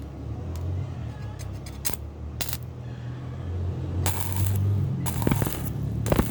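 Electric welding on cast iron: a welding machine's steady low hum, with short bursts of crackling hiss as the arc strikes and breaks, the longest two about four and five seconds in.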